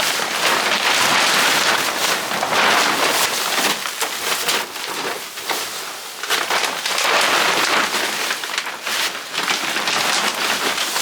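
Plastic membrane liner sheeting rustling and crinkling as it is unfolded, cut and laid out, a continuous rough noise that eases a little midway.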